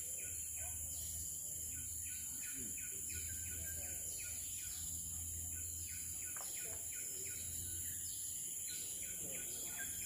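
Tropical forest ambience: a steady high-pitched insect drone, with series of short repeated chirps and a faint low hum underneath.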